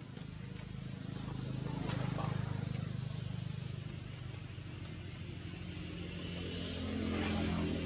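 A motor vehicle's engine running steadily with a low drone that swells louder about two seconds in and again near the end.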